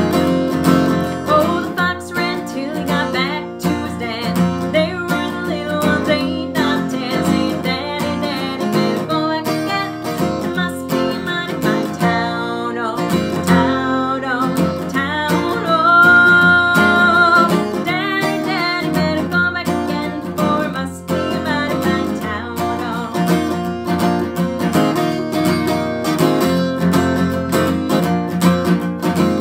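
Acoustic guitar strummed steadily, with a woman singing over it; about sixteen seconds in she holds one long high note.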